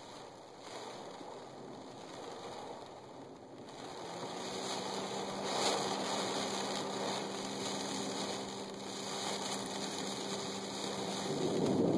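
Heavy rain on a car's windows and roof, heard from inside the car, growing steadily heavier. A steady vehicle engine hum joins about four seconds in and stops just before the end, when a louder low rumble begins.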